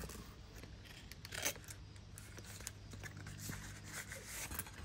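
Faint scrapes and rubbing from a Bowie knife and its leather sheath being handled, with one louder scrape about a second and a half in. A low steady hum sits underneath.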